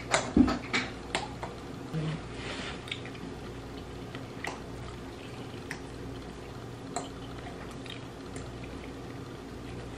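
Close-up eating sounds: wet chewing and mouth noises with short clicks of forks on plates, a cluster in the first second and then a few spaced apart, over a steady low hum.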